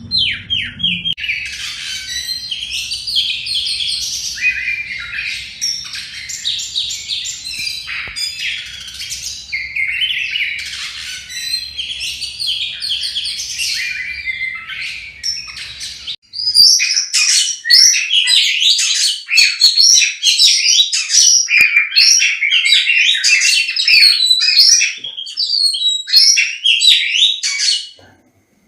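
Oriental magpie-robin (kacer) singing a long, rapid, varied song of chirps, whistles and trills. About 16 seconds in, the recording cuts to a second, louder stretch of song.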